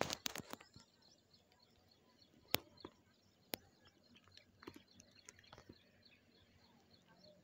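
Faint outdoor ambience with distant birds chirping over and over, broken by a few sharp clicks: a cluster at the start, then single ones about two and a half and three and a half seconds in.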